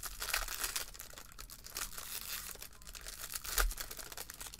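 Foil trading-card pack being torn open and crinkled by hand: a dense, continuous crackle of the wrapper, with a louder crunch about three and a half seconds in.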